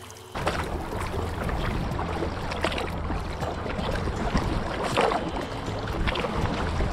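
Kayak paddles dipping and splashing in lake water, with irregular drips and splashes over a steady low rumble. It starts abruptly about half a second in.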